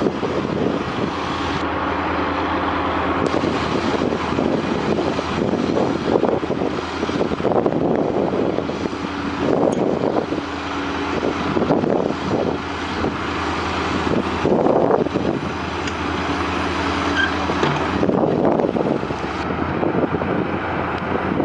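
Heavy construction machinery engines running, with rumbling and mechanical noise; the sound changes abruptly several times, at about 1.5, 3, 14.5 and 19.5 seconds in, as one clip cuts to the next.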